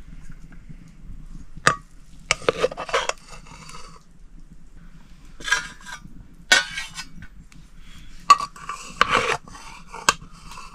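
Metal pots and utensils clattering: a string of short clinks and scrapes, some coming in quick runs of several strokes.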